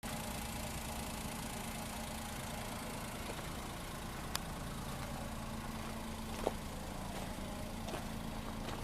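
Daihatsu Move kei car's three-cylinder engine idling steadily, with a couple of brief clicks.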